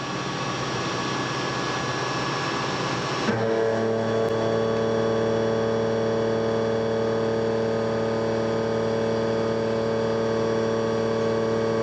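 CNC face mill cutting metal blocks. It starts as a hissy cutting noise, then changes suddenly, a bit over three seconds in, to a steady, even hum-whine of several tones.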